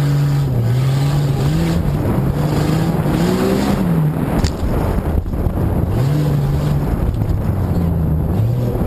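Jeep Grand Cherokee engine revving hard under full throttle on a dirt course. Its pitch climbs and drops several times as the driver works the throttle and shifts, over a steady rush of wind and tyre noise.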